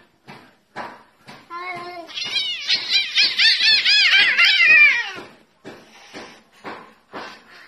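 Two domestic cats yowling at each other in a standoff and fight. There are short cries at first, then, about two seconds in, a loud, rapid run of high, wavering yowls lasting about three seconds, then short cries again.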